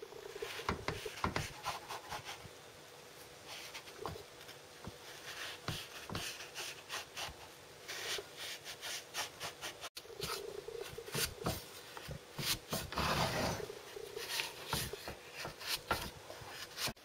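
A plastic knife cutting down through baked shortbread in a baking tin: irregular crumbly scraping and crunching with scattered clicks as the blade is pressed along the scored lines.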